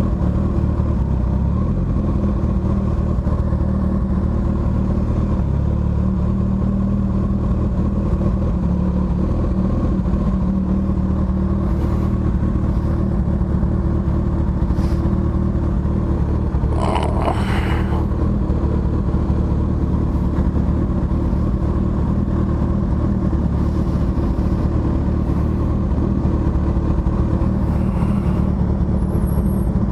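Motorcycle engine running steadily at low revs while riding slowly, its pitch holding fairly even, with a brief noise about halfway through.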